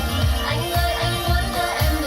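Pop music with a heavy bass beat, about two beats a second, played back through a portable Bluetooth speaker for a sound test.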